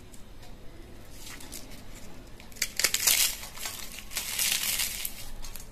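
A crisp, deep-fried nimki (flaky Bengali pastry triangle) cracking and crumbling as it is crushed in a hand, with two louder bouts of crunching about three and four and a half seconds in. The crackle is the sign of how crisp and flaky the fried layers are.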